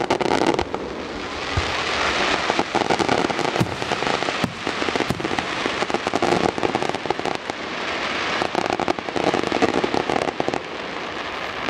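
Fireworks finale: aerial shells bursting in quick succession, a dense barrage of bangs and crackle without a break.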